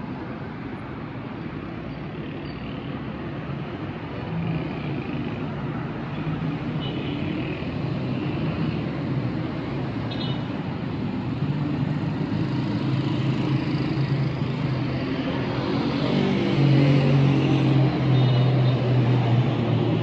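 Street traffic: car engines and tyres on a busy city avenue, growing louder, with one vehicle's engine running close by near the end.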